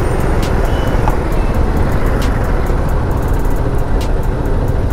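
KTM Duke 390 single-cylinder motorcycle being ridden in dense, slow city traffic: a steady rumble of its engine mixed with the surrounding buses and auto-rickshaws.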